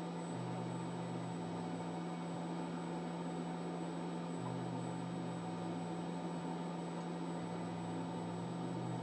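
Hot-air rework station blowing steadily: a constant fan hiss with a steady hum underneath, and a lower hum that comes and goes every second or so.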